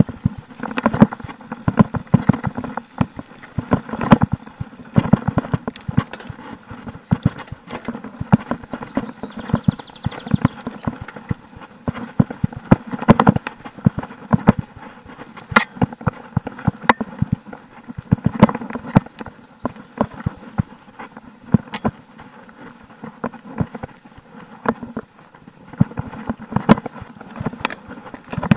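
Mountain bike riding fast over a rough dirt singletrack: an irregular, dense clatter of knocks and rattles from the chain, frame and suspension as it hits roots and bumps, over the rumble of the tyres on dirt.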